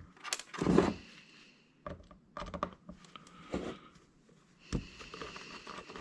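A few irregular clicks and clatters of a hard drive being taken apart by hand, its small metal screws and tools knocking against the drive and the work surface.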